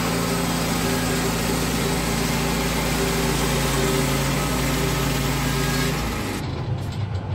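The petrol engine of a Woodland Mills HM122 portable bandsaw mill running at a steady speed, then cutting out about six seconds in, followed by a few knocks.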